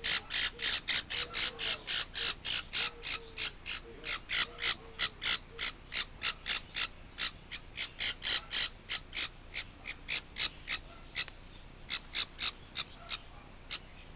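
Baby parrot chick squawking in a rapid, even string of short, high calls, about three a second, with a short break about eleven seconds in, while a kitten paws and mouths it.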